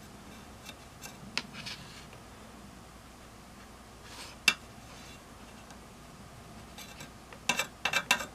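Soldering iron being handled in and out of its metal holder stand: a few light clinks, one sharp metallic click about halfway through, and a quick run of clicks near the end as the iron is set back into the stand.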